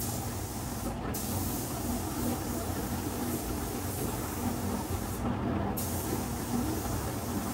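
Automotive paint spray gun hissing as it lays paint on the panels in passes. The spray cuts off briefly about a second in, and again for about half a second a little after five seconds in, over a steady low rumble.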